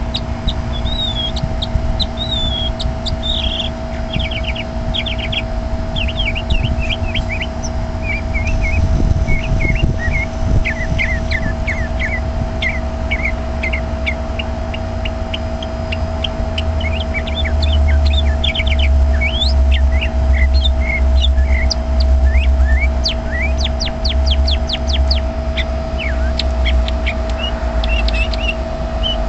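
Small songbird chirping in a bush: a continuous string of short, quick chirps and fast trills. Under it runs a steady low rumble, the loudest part of the sound and strongest through the second half, and a faint steady hum.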